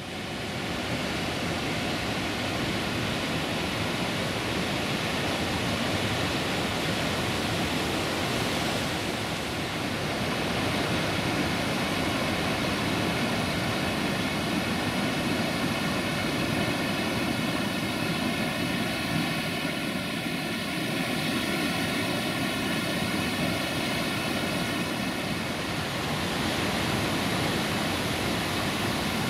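Waterfall and fast-flowing river water rushing, a steady, unbroken noise.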